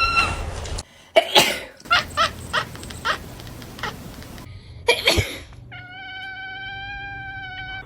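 A domestic cat meowing in answer to a person's sneezes: sharp sneeze bursts alternate with short cat calls. Near the end the cat holds one long, steady meow.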